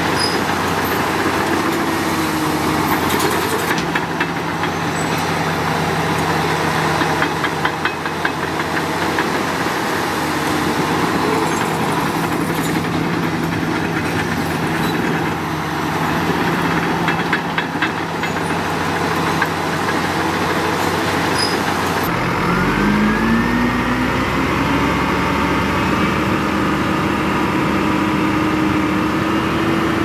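Heavy diesel engine of earthmoving machinery running steadily, with runs of clanking, then revving up about three quarters of the way through and holding at the higher speed.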